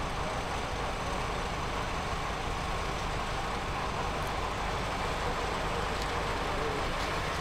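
Steady background rumble and hiss that does not change.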